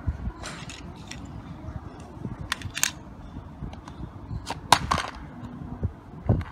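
Sharp plastic clicks and clacks from hands handling toys: the hinged plastic gates of a toy train station are swung open, and a die-cast toy car is set down on plastic track. The clicks come singly, the loudest about three quarters of the way through, over a low rumble.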